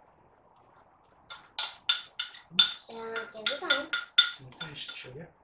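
A spoon knocking and scraping inside a mixing bowl, about three sharp clinks a second starting after a second or so, as icing sugar is scraped out into a saucepan.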